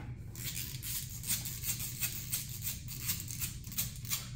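A ratcheting hand driver clicking in a steady run, about four or five clicks a second, as a 3 mm Allen screw on the motorcycle's airbox is backed out.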